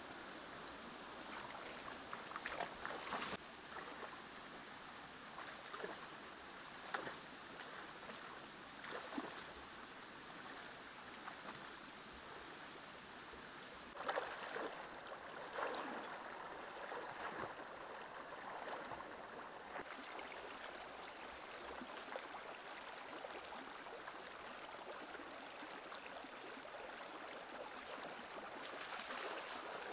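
Shallow stream running steadily, with splashing several times as bare feet wade through the water. The loudest splashes come about halfway through.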